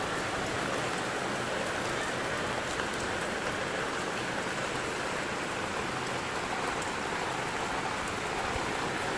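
Heavy rain pouring down steadily, an even hiss with scattered drop ticks.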